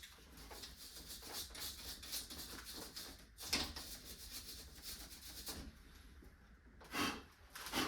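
Quick repeated rubbing or scrubbing strokes by hand, with one stronger stroke about halfway. The strokes stop about six seconds in, and a short, louder puff of noise follows near the end.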